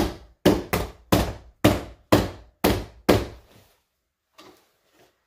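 Rubber mallet striking the door-sill weather strip and trim of a Ford Explorer door opening, seating its retaining tabs. About eight sharp knocks, roughly two a second, stop about three and a half seconds in, followed by a couple of faint taps.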